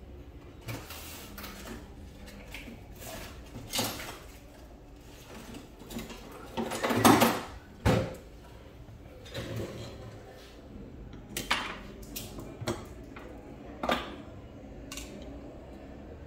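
Irregular metallic clinks and knocks of hand tools and small steel parts being handled on a wooden table while a PCP air rifle is taken apart, with a louder cluster of knocks about seven seconds in.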